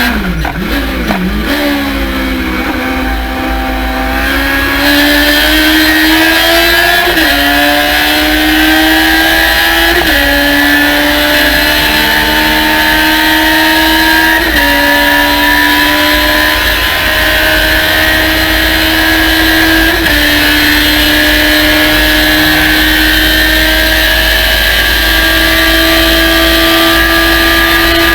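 Race car engine at full throttle, pulling up through the gears: the pitch dips sharply twice at the start, then climbs steadily with four brief drops at the upshifts, and falls away near the end as the driver lifts.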